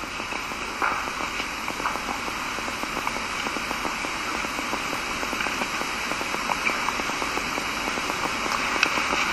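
Steady crackling hiss with faint scattered ticks, growing slightly louder towards the end: background noise of the lecture recording during a pause in speech.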